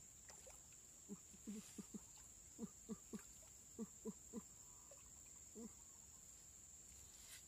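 Faint outdoor ambience: a steady high-pitched insect drone, with about a dozen short, low, falling animal calls between one and six seconds in.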